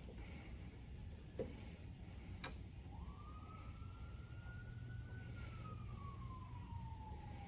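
Faint distant siren wailing: a single tone that rises, then slowly falls, and starts to rise again at the end. Before it, two small clicks.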